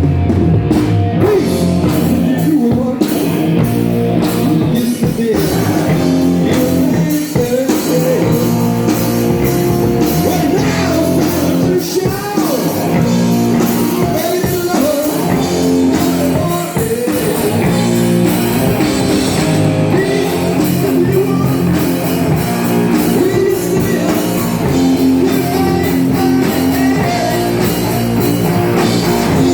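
Rock music with electric guitar, drums and a singing voice, playing without a break.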